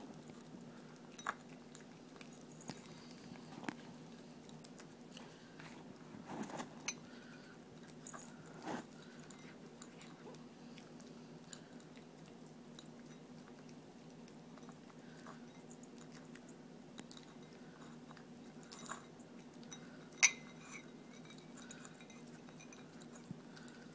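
Puppy chewing and crunching dry kibble from a bowl: a string of small irregular crunches and clicks, with one sharp clink about twenty seconds in.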